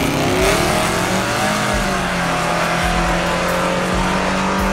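Pickup truck launching off the drag-strip start line and accelerating hard away: the engine's pitch climbs just after the start, then it settles into a steady, loud drone as the truck runs down the track.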